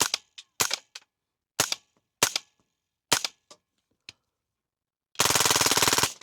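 Suppressed .22 LR rifle fired five times, about half a second to a second apart, with Winchester Super Suppressed rounds through a Lone Wolf Arms Eliminator22 suppressor. Each shot is a sharp crack followed by a fainter click. Near the end there is a dense, rapid rattling burst about a second long that stops abruptly.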